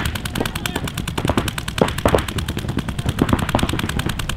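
Paintball markers firing in rapid, overlapping strings, a dense run of sharp pops, many shots a second.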